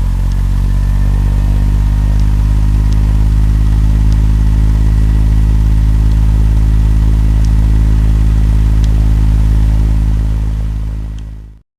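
Turboprop airliner's engines and propellers running: a steady, loud low hum with a faint whine above it that rises slightly at first. It fades near the end, then cuts off abruptly.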